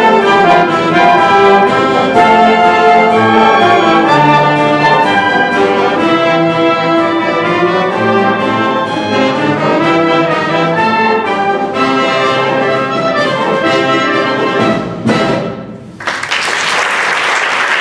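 Concert wind band of woodwinds and brass playing the closing bars of a pop-song arrangement, ending on a final chord about fifteen seconds in. Audience applause follows.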